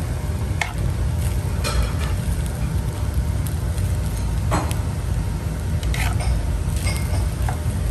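A metal spoon stirring and scraping fried rice around a non-stick frying pan, with several sharp clinks where the spoon strikes the pan. A steady low rumble lies underneath.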